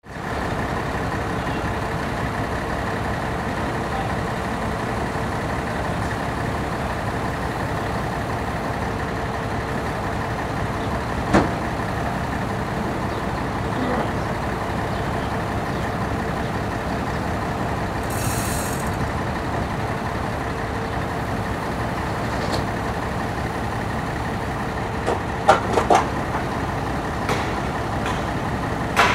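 Boom truck's diesel engine running steadily to power the lorry-mounted crane, with a steady whine over the drone. A few short knocks and clanks sound about a third of the way in and near the end, and a brief hiss about two-thirds in.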